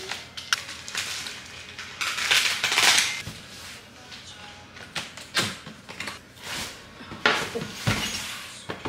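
Cardboard and paper packaging being handled and opened: a paper box lid and cardboard boxes knocked and set down, with scattered knocks and clicks and rustling, the longest rustle about two to three seconds in.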